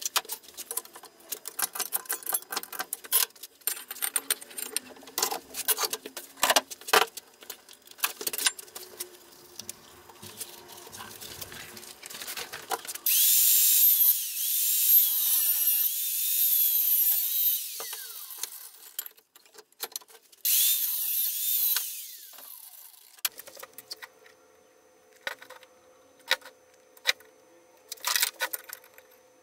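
Clicks and knocks of metal and tools being handled, then an angle grinder cutting 50×50 square steel tube for about five seconds, a high-pitched grinding that fades as the disc slows, followed by a second short cut.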